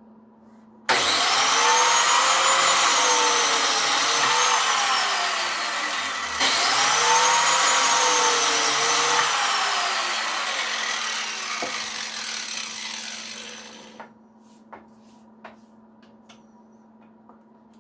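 Biscuit (plate) joiner's motor run twice, cutting slots for number 10 biscuits in wooden blocks. Each time the motor whine rises, sags briefly under load as the blade plunges into the wood, and falls away. The second run winds down slowly, and a few light knocks of handling follow.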